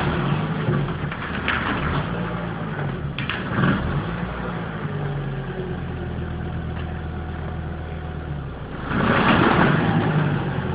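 Volvo 850 AWD's five-cylinder engine running steadily under light load while the car is driven on its rear wheels alone through the viscous coupling, front wheels spinning off the ground. A few short clicks come in the first few seconds, and the noise swells louder about nine seconds in.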